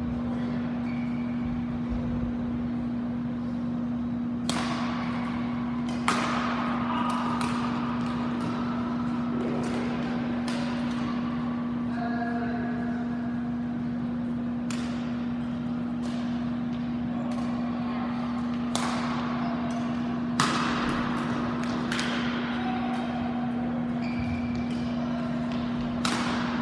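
Badminton rackets striking the shuttlecock in a rally in a large hall: sharp smacks at uneven spacing, each with a short echo, over a steady low hum.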